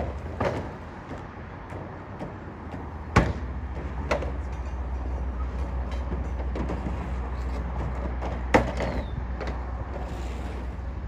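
Dura-Trac temporary flooring panels knocking and clattering as they are set down onto metal support beams and neighbouring panels: scattered sharp knocks, the loudest about three seconds in and again near the end. A steady low rumble runs underneath.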